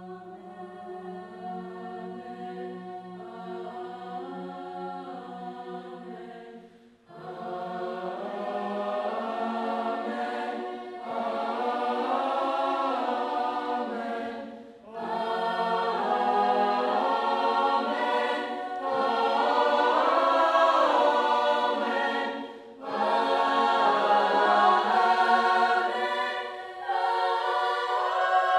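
Mixed choir of men and women singing sustained chords in long phrases, with short breaths between them. It is soft at first, then swells louder from about seven seconds in.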